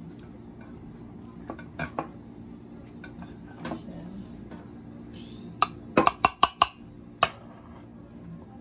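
Metal kitchen utensils and dishes clinking and knocking: a few scattered knocks, then a quick run of about six sharp clinks in the second half.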